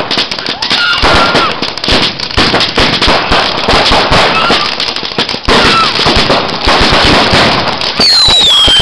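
Fireworks launching and bursting in quick succession, a dense run of bangs and crackle with a few short whistles. Near the end a loud falling whistle starts.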